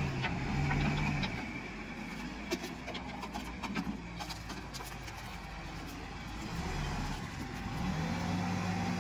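Escorts Digmax backhoe loader's diesel engine running as the machine drives and turns, its pitch dropping after the first second and rising again near the end. Scattered sharp clicks and knocks in the middle.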